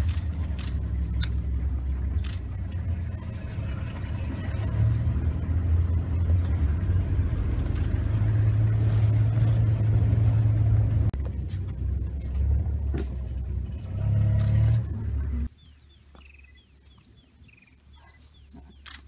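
Engine of a stopped game-drive vehicle running, a steady low rumble. About fifteen seconds in it cuts off suddenly, leaving a quiet stretch with faint short high chirps.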